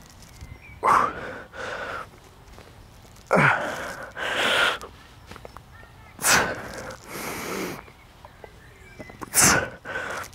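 A man breathing hard through a set of pull-ups: four forceful, grunting exhales about every three seconds, each followed by a quieter drawn-in breath.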